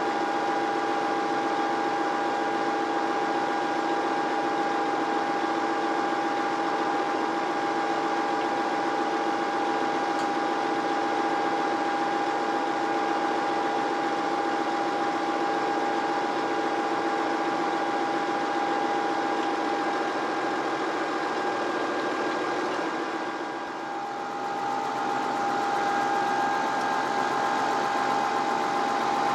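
Tractor engine idling steadily, with a constant whining tone over it; the sound dips briefly near the end and then carries on unchanged.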